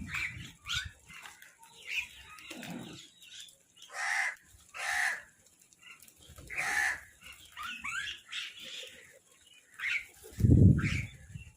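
Crows calling in a series of harsh caws, with shorter chattering bird calls mixed in between. Near the end there is one loud, low thud.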